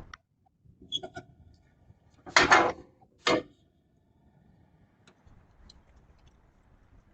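A few short clicks and knocks, then two louder clattering bangs less than a second apart, then faint background noise with a couple of small ticks.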